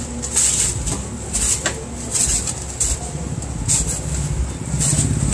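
A brown paper bag rustling in short repeated crinkles, with metal tongs clicking and scraping against a steel baking tray as bread rolls are picked up and dropped into the bag.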